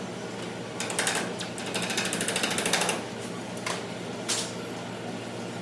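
A rapid run of mechanical clicks lasting about a second, with a few single knocks before and after it, over a steady low hum.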